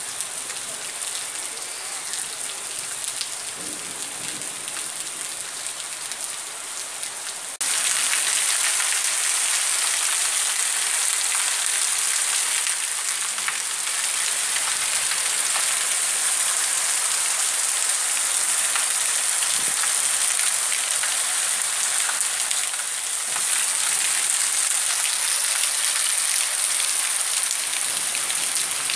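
Heavy rain falling steadily on a flooded street and roofs, a continuous hiss. It gets suddenly louder about seven and a half seconds in.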